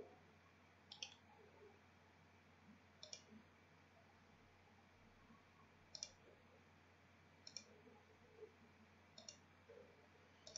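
Computer mouse button clicks, about five sharp single clicks spaced a second and a half to three seconds apart, over a faint steady hum.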